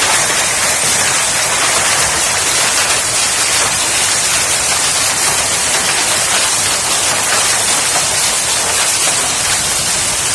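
Heavy rain with hail pelting down: a steady, loud, dense hiss of countless small impacts.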